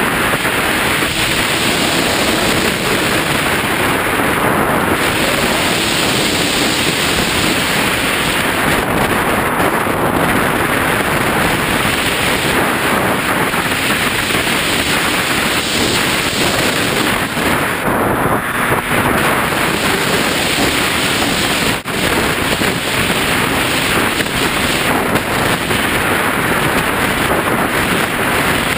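Steady loud rush of airflow buffeting the microphone of a camera mounted on a radio-controlled flying-wing plane in flight, with a brief dropout about 22 seconds in.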